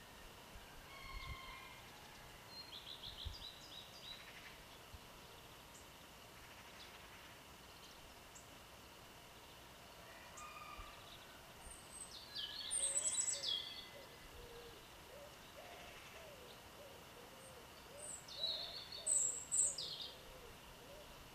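Several garden songbirds singing and chirping in the open air. Short chirps are scattered through the first half, there are two loud bursts of high, falling song about 12 and 18 seconds in, and from about halfway on there are low, wavering calls in the background.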